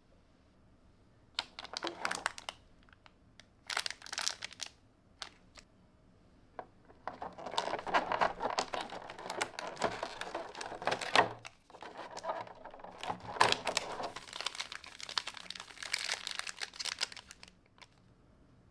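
Foil Pokémon booster-pack wrappers and a clear plastic packaging tray crinkling and rustling as hands lift and handle the packs. Two short bursts, then long stretches of crinkling with a brief pause partway through.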